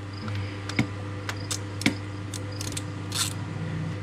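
Irregular sharp metallic clicks and clinks of hand tools on an 18 mm plug as it is loosened and unthreaded from the side of a tractor transmission, with a short scraping rustle about three seconds in, over a steady low hum.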